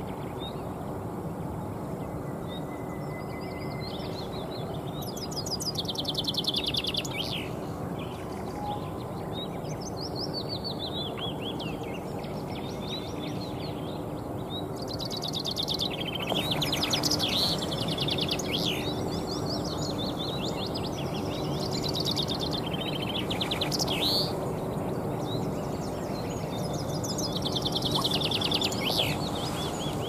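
Male common chaffinch singing: repeated song phrases every few seconds, each a quick run of notes falling in pitch and ending in a short flourish, over steady background noise.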